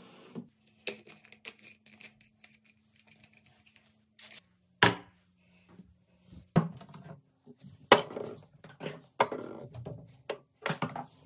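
Water from a bathroom sink faucet into a glass bottle stops about half a second in; then scattered clicks, knocks and clatters of bottles being handled and set down on the counter, busier in the second half.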